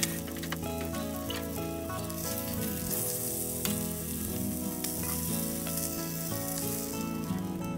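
Chicken thigh sizzling in oil in a nonstick frying pan, getting louder about three seconds in, with a few light clicks.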